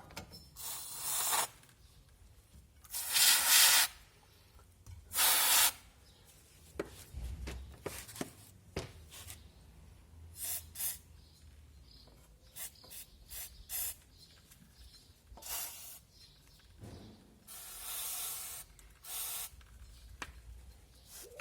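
Aerosol cleaner sprayed in short hissing bursts, about six of them, while rear drum brake parts are cleaned. Between the bursts come faint rubbing and small clicks.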